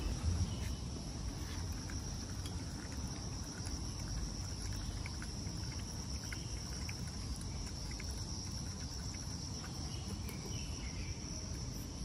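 Steady, high-pitched insect chorus, with a low rumble underneath.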